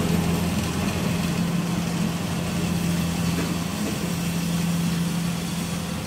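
Rice combine harvester's engine and threshing machinery running steadily under load while harvesting, a constant low hum over a broad mechanical rush.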